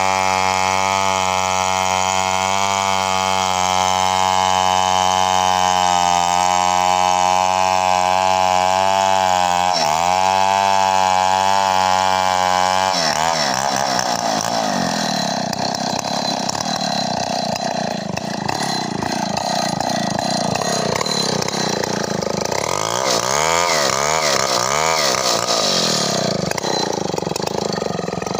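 Chainsaw running at high revs while ripping a coconut palm trunk lengthwise. Steady for about the first 13 seconds, with a brief dip near 10 s, then the pitch wavers and swings up and down as the throttle and load change.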